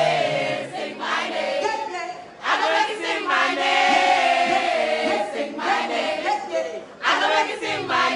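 Several voices singing a melody together over music at a live concert. The phrases are sustained, with short breaks about two seconds in and again around seven seconds.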